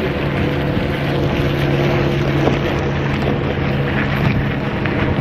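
Wind buffeting the microphone of a moving bicycle as its tyres roll over gravel, with a steady low hum underneath.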